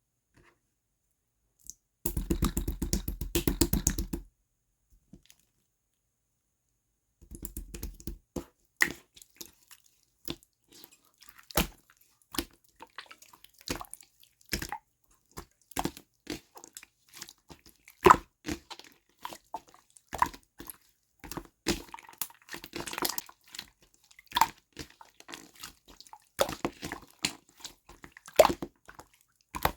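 Clear slime being squeezed and poked by hand, making wet, sticky clicks and bubble pops. There is a dense run of rapid clicking about two seconds in, then irregular single pops and clicks.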